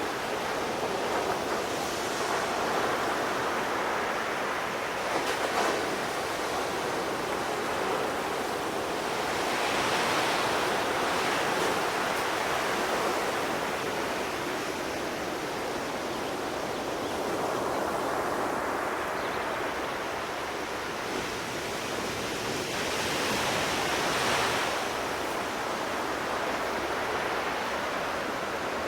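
Sea waves breaking and washing ashore: a continuous rush of surf that swells and eases as each wave comes in, loudest about ten seconds in and again near the end.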